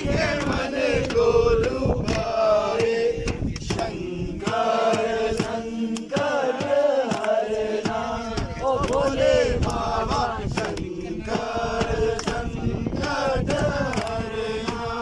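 Group of men singing a devotional chant together, clapping their hands along with it.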